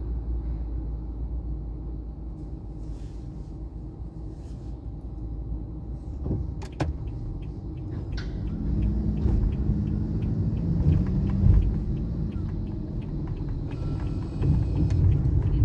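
Car driving, heard from inside the cabin: a steady low engine and road rumble. A couple of sharp clicks come about six to seven seconds in. After that a regular ticking starts and the engine note rises for a few seconds.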